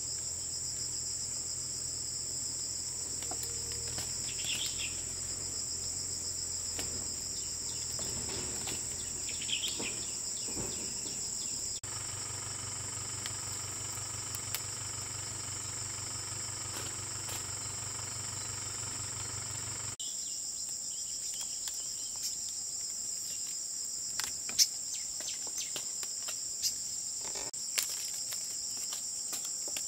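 A steady, high-pitched drone of forest insects, with scattered rustles and sharp snaps from fruit clusters and twigs being picked, the loudest snap about two-thirds of the way through.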